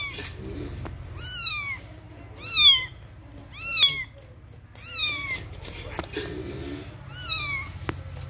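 Kitten meowing repeatedly: about six high-pitched meows, roughly one every second and a quarter, each rising and then falling in pitch.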